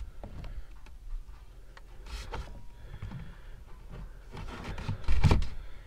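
Items being handled and shifted: faint rubbing and light knocks, with a louder rubbing and knocking stretch about five seconds in.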